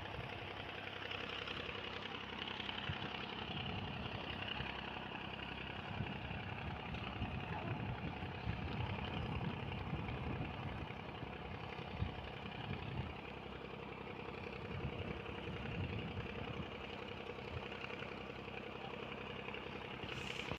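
A machinery engine running steadily at idle, with a constant hum over a low, uneven rumble.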